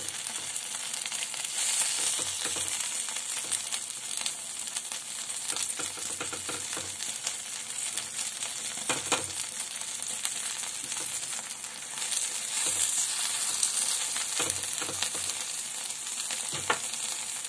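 Banana-leaf parcels of prawn paturi sizzling in a thin layer of mustard oil in a non-stick pan, with a steady hiss and a few sharper clicks scattered through it.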